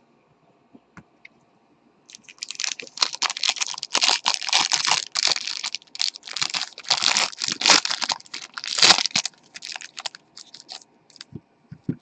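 Crinkly plastic or foil card wrapping being crumpled and torn in rapid bursts, starting about two seconds in and easing off about nine seconds in, followed by a few light clicks and rustles.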